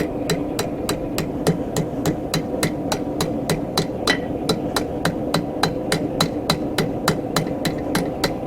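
Blacksmith's hammer striking a steel bar on an anvil in a steady rhythm of about three blows a second, each blow ringing, over a steady low hum.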